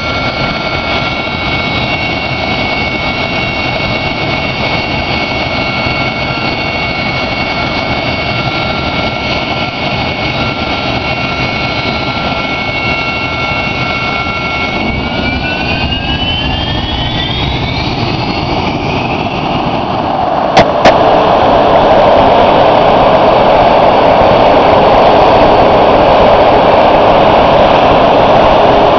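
A-7 Corsair II jet engine during a ground run-up: a steady whine at first, then about halfway through the whine climbs in pitch as the engine spools up. From about two-thirds in it runs at high power, markedly louder with a dense rush of jet exhaust. Two sharp clicks come just as it gets loud.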